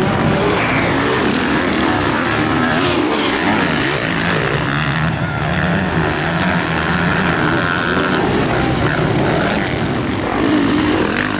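Several motocross bikes' engines racing around the track, revving up and down so that their overlapping pitches rise and fall continuously.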